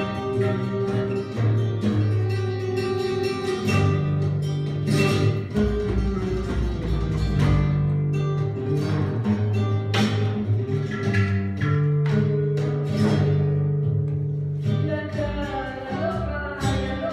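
Live acoustic guitar playing an Argentine tango, plucked and strummed over a deep bass line. A voice starts singing near the end.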